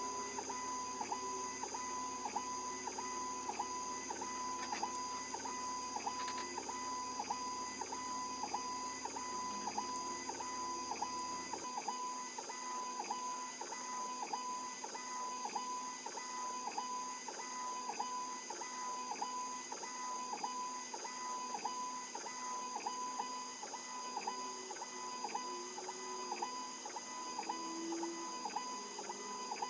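ACMER 2500 mW mini laser engraver running an engraving job: its motors whine evenly, pulsing about twice a second, over a steady high-pitched tone.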